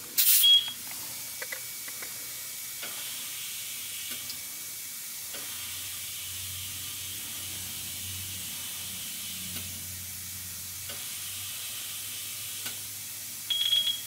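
Compressed air hissing from a Hunter Road Force balancer's inflation station checking and filling a car tire through the valve stem. There is a short loud burst of air with a beep as the chuck goes on, then a steady hiss, and another beep near the end.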